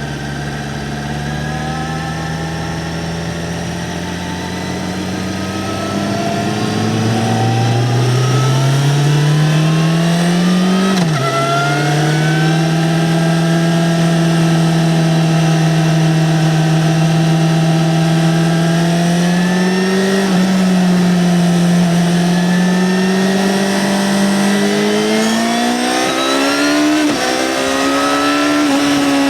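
Yamaha XJ6-N's 600 cc inline-four engine, stock exhaust, under way. The pitch climbs, drops sharply at a gear change about eleven seconds in, holds steady while cruising, then climbs again with another short dip near the end.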